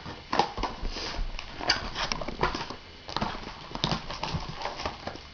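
Irregular clicks and knocks of a cardboard trading-card box and its packs being handled and opened on a table.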